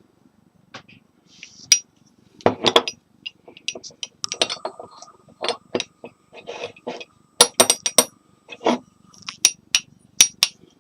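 A teapot being handled: irregular light clinks and knocks of its lid and body, one leaving a faint ring for several seconds.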